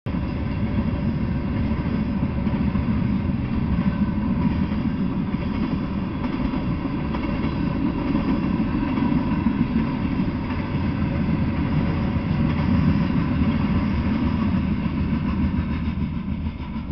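Freight train of covered hopper and tank cars rolling past on the rails, a steady loud rumble of wheels on track. The sound starts to fall away near the end as the last car goes by.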